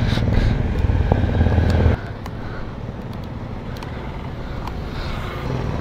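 Motorcycle engine running with a steady low rumble; about two seconds in the sound drops abruptly to a quieter low noise.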